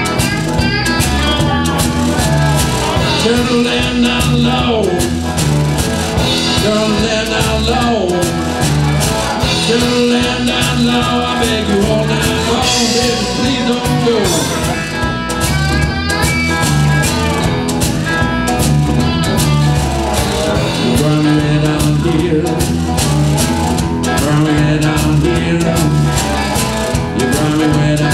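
Live blues band playing: amplified cigar box guitars over a drum kit with a steady beat, with notes that slide down in pitch several times.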